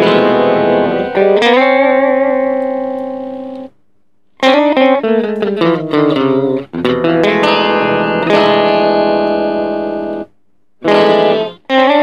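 Electric guitar played through a TC Electronic Plethora X5 pedalboard's pitch-shifter patch, which adds harmony voices to sustained notes and short phrases. The notes ring out and fade, with a couple of falling bends, and the playing stops briefly about 4 seconds in and again about 10 seconds in.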